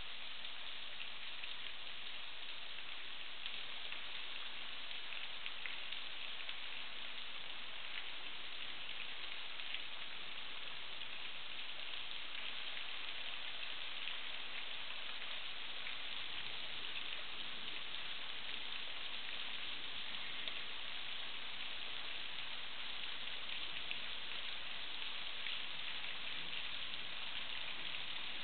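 Small waterfall splashing steadily down a rock face: an even hiss of falling water.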